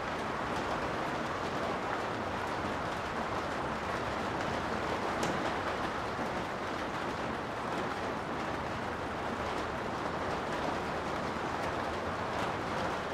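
Steady rain heard from inside a garage: an even hiss with a few faint ticks of drops, one about five seconds in and more near the end.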